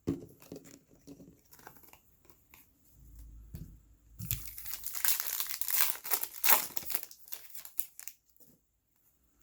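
Trading card pack wrapper being torn open and crinkled. Scattered light ticks and rustles come first, then a stretch of loud crinkling from about four to seven seconds in.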